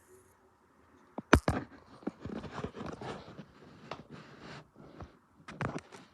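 A sharp knock a little over a second in, then a run of irregular short knocks, taps and rustles.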